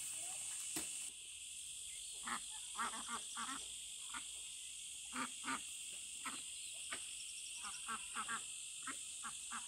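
A flock of young ducks calling in short, scattered quacks, sometimes several in quick succession, over a steady high hiss. A sharp knock comes in the first second.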